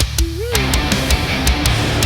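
Heavy metal background music with distorted guitar and a steady drum beat, including a short bent guitar note near the start.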